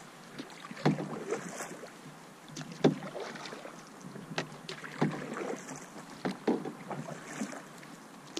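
Canoe paddle strokes in calm lake water: a splash about every two seconds as the blade dips and pulls, with smaller splashes between.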